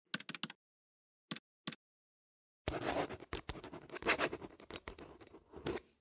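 Title-card sound effects: a few separate typing clicks in the first two seconds, then about three seconds of dense scratching, a pen writing across paper.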